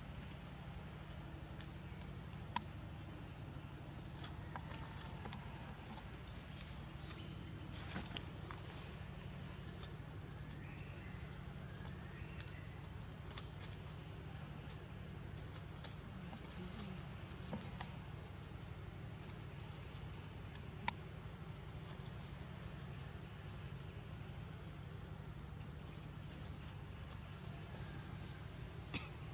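Steady, high-pitched drone of an insect chorus over a low steady rumble, broken by a few sharp clicks.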